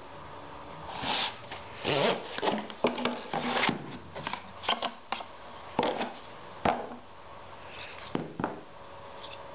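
Hands handling pen-making tools on a workbench: a red plastic tool tube opened and a metal barrel trimmer taken out and picked up, giving an irregular run of clicks, knocks and rustles.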